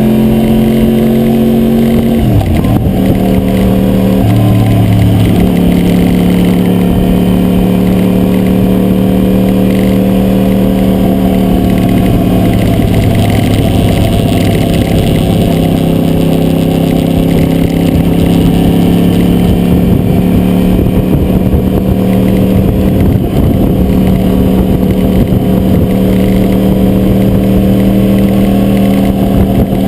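2009 Yamaha YZF-R1's crossplane inline-four engine running under way, its pitch shifting a couple of times in the first five seconds and then holding at fairly steady revs. Over it comes wind noise and the rattle of the GoPro Hero2 camera in its adhesive mount.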